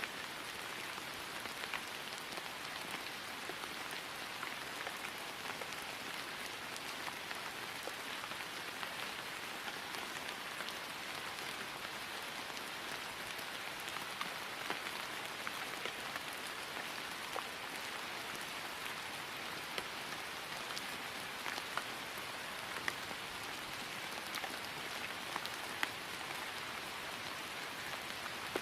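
Steady rain falling on grass: an even hiss with scattered sharper drop ticks.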